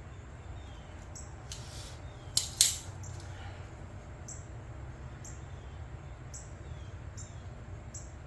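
Short hissing spray bursts, the loudest a pair about two and a half seconds in, cleaning out a small-engine carburetor's passages. Under them runs a steady low hum, with faint high chirps repeating less than a second apart.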